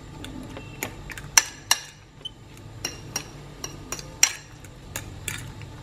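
A metal fork stirring diced tofu and beaten egg in a glass bowl, clinking irregularly against the glass with a brief high ring after each strike.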